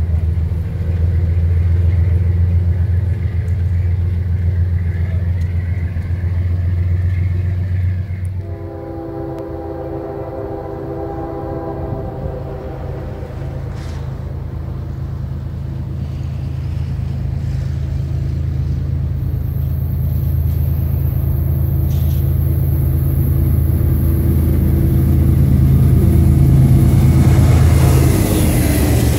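Passenger train cars rumbling past on the rails, fading after about eight seconds. A locomotive air horn then sounds one long chord for about three seconds. The rumble of a CSX freight train grows steadily louder as it approaches, with its diesel locomotives reaching the platform near the end.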